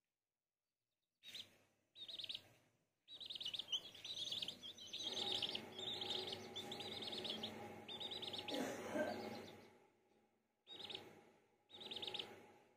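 Chicks peeping from under a brooding hen, quick runs of high chirps in several bursts with short silent gaps between. Through the middle stretch a lower, steady sound runs under the peeps.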